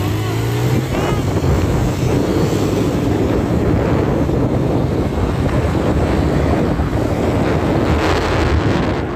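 Heavy wind rushing over the microphone of a motorcycle riding at speed, with the motorcycle's engine running underneath.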